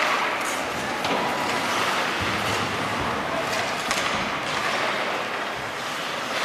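Ice hockey play in an arena rink: several sharp clacks of sticks and puck and skates on the ice, over a steady arena hubbub.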